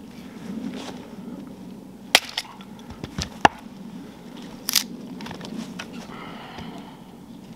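Axe chopping firewood: a few sharp strikes of the blade into the wood, the loudest about three and a half seconds in, with another near the five-second mark.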